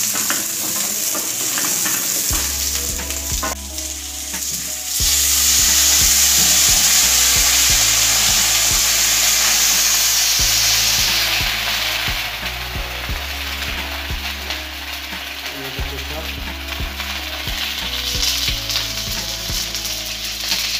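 Onion, capsicum and tomato sizzling in hot oil in a wok as they are stir-fried, with short clicks and scrapes of the spatula on the pan. The sizzle is loudest from about five to eleven seconds in, then eases somewhat.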